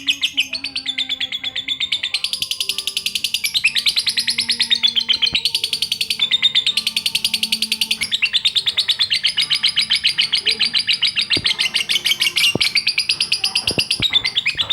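Lovebird chattering: a continuous run of rapid, high chirps, many a second, broken by a few short pauses.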